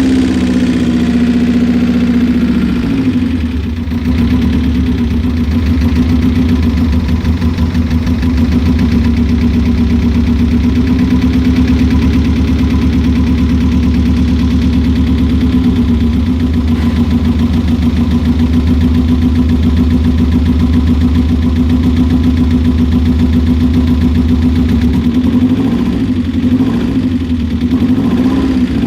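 Subaru Impreza GC8's flat-four boxer engine idling steadily with a fast, even pulse, which the owner says is misfiring. The low end shifts slightly twice.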